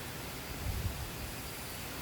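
Steady outdoor background hiss with a brief low rumble a little after the start; no siren is sounding.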